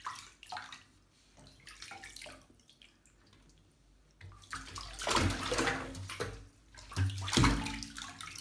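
Water splashing and sloshing in a shallow bathtub as a ferret paddles and is handled. A few small splashes come first, then two louder stretches of splashing past the middle.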